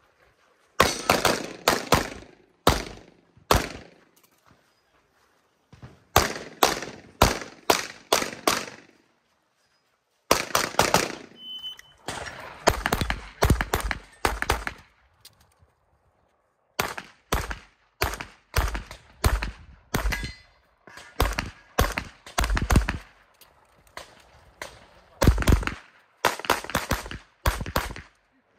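Tanfoglio pistol fired in quick strings of several shots, broken by pauses of one to two seconds between strings.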